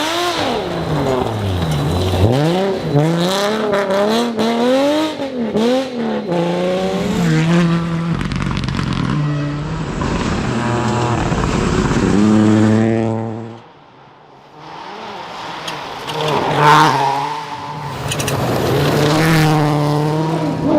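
Rally car engine revving hard, its pitch climbing and dropping again and again through gear changes. The sound drops away for about a second a little past halfway, then engine revving starts up again.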